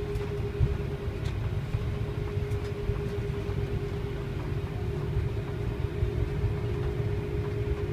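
Airliner cabin noise after landing: a steady low rumble with a constant mid-pitched hum running through it, and a few faint clicks.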